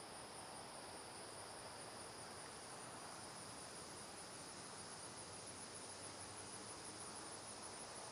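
Field insects trilling steadily in a faint chorus: one very high, finely pulsing trill over a second, slightly lower continuous tone.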